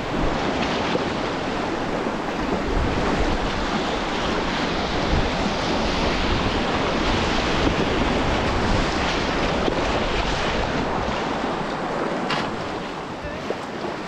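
Whitewater rushing steadily around a kayak, heard close up, with wind buffeting the microphone as a low rumble.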